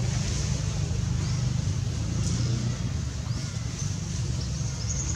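A steady low mechanical hum, with a faint high insect drone above it.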